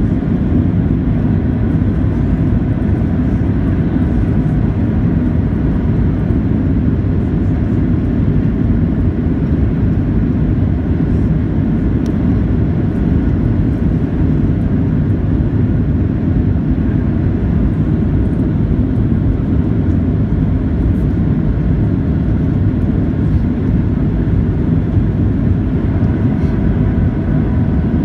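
Steady cabin noise inside a Boeing 737-700 in flight: a loud, even low rumble of airflow and its CFM56-7B turbofan engines, with faint steady higher tones over it.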